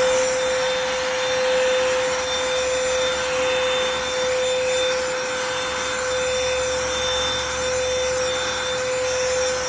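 Cordless handheld vacuum running steadily, a constant motor whine over the rush of air through the nozzle.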